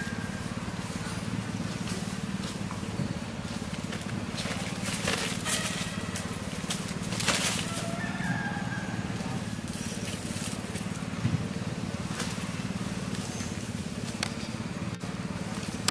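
A steady low mechanical hum, with a few short, faint high calls and brief rustling noises about five and seven seconds in.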